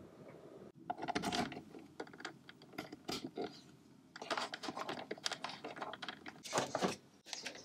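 Irregular small clicks, taps and scrapes of hands handling a plastic USB charger and its charging cables, with cable plugs pushed into the charger's ports.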